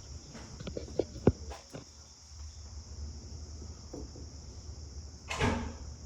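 Crickets chirring steadily, with a few knocks and clicks in the first two seconds, the sharpest just over a second in, and a short louder scrape near the end.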